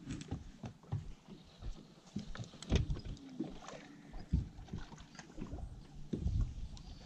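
Small waves lapping and slapping against the hull of a bass boat in uneven low thumps, the loudest about three and six seconds in, while a spinning reel is cranked in the retrieve.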